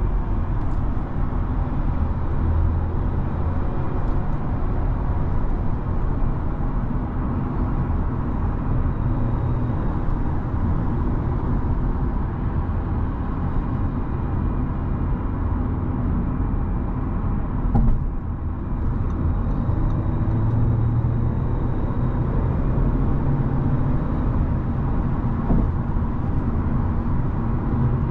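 Inside the cabin of an Audi A4 B9 35 TFSI, with its 2.0-litre turbocharged four-cylinder petrol engine, driving at motorway speed: steady tyre and wind noise over a low engine hum. A brief knock about eighteen seconds in.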